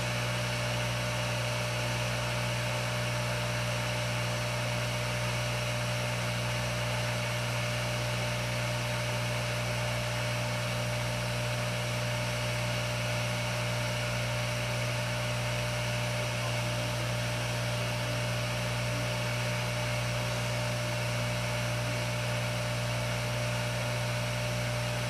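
Hot air rework station blowing steadily, a constant low hum under an even airy hiss, as it heats an old digitizer FPC connector to melt its solder for removal.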